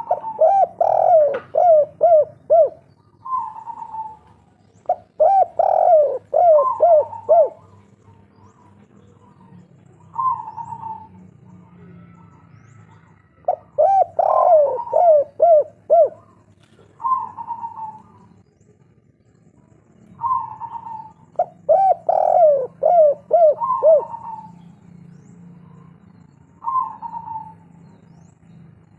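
Spotted dove (tekukur, 'kuk 3' type) cooing: four phrases, each a quick run of four or five coos, with single coos in the gaps between them. A faint steady low hum lies underneath.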